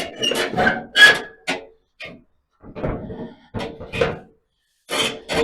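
Steel plate being handled: a series of irregular clanks, knocks and scrapes, several of them leaving a short metallic ring.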